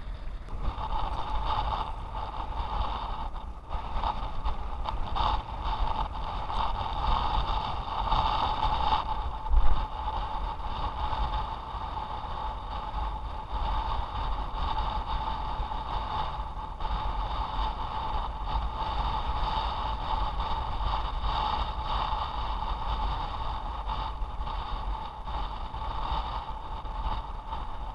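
Steady drone of traffic on a road bridge, with wind rumbling on the microphone and a brief thump about ten seconds in.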